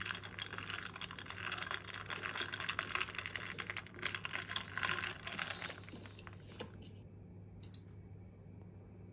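Ice cubes clinking and rattling against a glass as an iced latte is stirred with a plastic straw, a quick, busy run of small clicks that stops about two-thirds of the way through, with one more click near the end.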